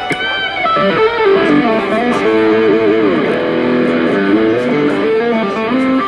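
Electric guitar playing a melodic line of single notes and chords, with some notes sliding or bending in pitch.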